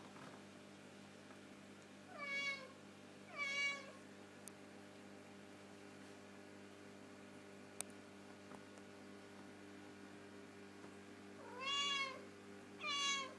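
A domestic cat meowing four times, in two pairs: two meows about two seconds in and two more near the end, each about half a second long.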